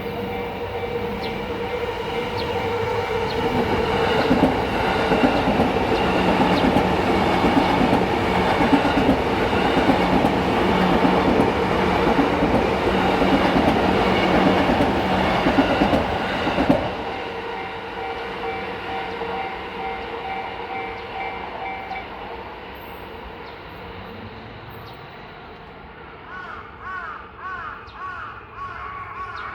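A train passes over a level crossing while the crossing's warning bell rings as a steady tone. The train noise ends abruptly about 17 seconds in, and the bell stops about five seconds later. Crows caw several times near the end.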